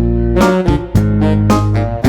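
Background music: a bouncy instrumental with plucked, guitar-like notes over a steady bass, changing chord about every half second.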